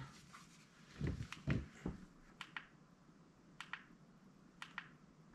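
Quiet handling of a laser rangefinder: a few soft bumps about a second in, then several light clicks, some in quick pairs.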